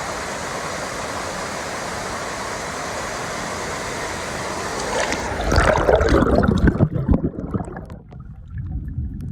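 Steady rushing of a waterfall. About five seconds in it turns to a muffled, low gurgling and bubbling with the high hiss gone, as the microphone goes under the water.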